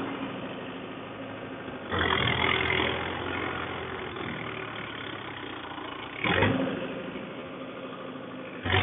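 Mahindra Yuvo 575 DI tractor's four-cylinder diesel engine running as the 4WD tractor is driven and turned across ploughed soil. Its steady hum surges sharply twice, about two and six seconds in, easing off after each surge.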